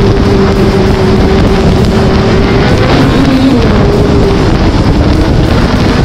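Snowmobile running at speed, heard from on board: a loud engine and track drone with a steady engine note that changes pitch about halfway through.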